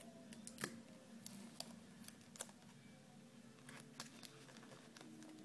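Faint crinkles and taps of paper and tape being handled while folding, heard as a handful of short, separate clicks at uneven intervals over a low steady hum.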